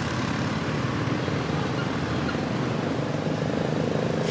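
An engine running steadily at idle, a low even hum with a fine regular pulse over a background hiss.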